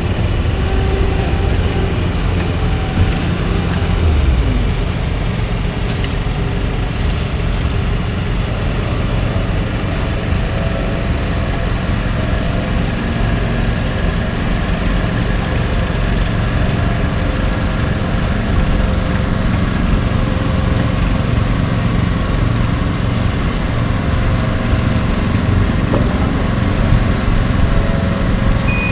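Engines running steadily: a heavy-duty work pickup towing a trailer-mounted machine rolls slowly past, with a continuous low rumble and no distinct events.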